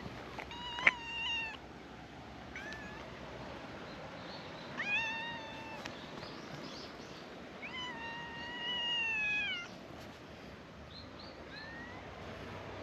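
Calico cat meowing repeatedly: five meows, the longest held about two seconds, the last one short and faint. A sharp click sounds about a second in.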